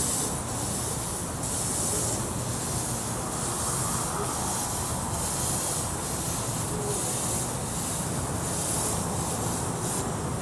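Miniature steam locomotive working hard with a heavy train: slow, even exhaust chuffs, a little more than one a second, with steam hiss over a steady rumble of wheels on the track.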